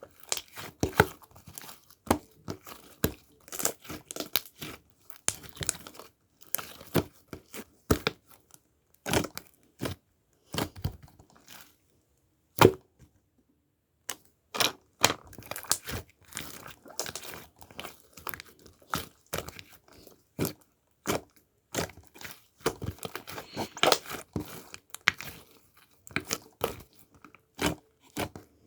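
Close, irregular crinkling and crackling with many short sharp clicks and taps, like something being handled, torn or crumpled; there is a brief lull about twelve seconds in.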